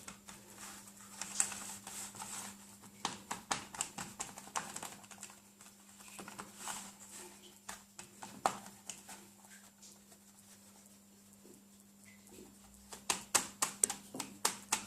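Fingers pressing shortcrust dough into a metal tart tin and up its sides: irregular soft taps and clicks in clusters, with a lull in the middle, over a faint steady hum.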